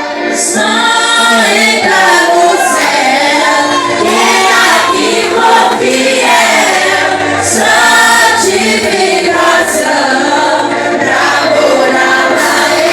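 Youth worship group singing a Pentecostal praise medley together in several voices.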